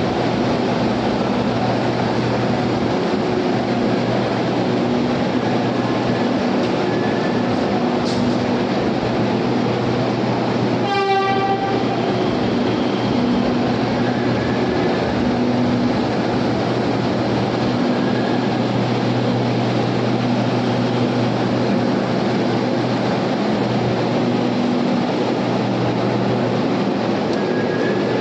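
Pune Metro underground train running, a loud steady rumble with a low hum throughout. About eleven seconds in, a short horn-like tone sounds once.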